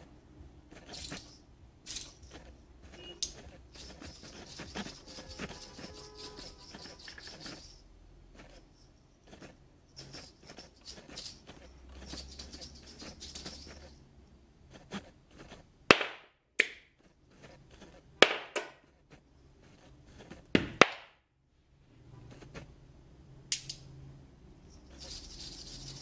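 Steel ball of an Orbiter magnetic fidget spinner clicking against and rolling around its neodymium magnet ring in the hand. Stretches of soft whirring as the ball runs around the ring, and several sharp metal clicks, the loudest in the middle of the stretch, as the ball snaps onto the magnet.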